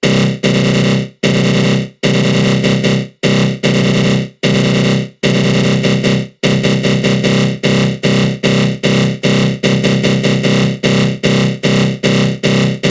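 Synthesized attack-growl sound effect: a harsh, buzzing synth tone swept by a flanger, broken into repeated pulses. The pulses come about once a second at first, then quicken to about three a second around halfway through.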